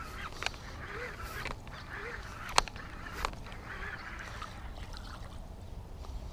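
Geese honking over and over, about one call a second, fairly faint. A few sharp clicks or knocks come in between; the loudest is about two and a half seconds in.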